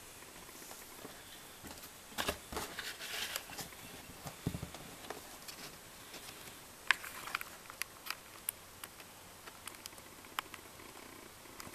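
Handling noise: irregular rustles and scattered small clicks, with a cluster of rustling about two to three seconds in and a sharp click near seven seconds.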